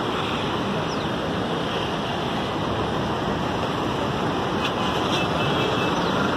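Steady rushing roar of floodwater pouring through the opened spillway gates of Srisailam Dam.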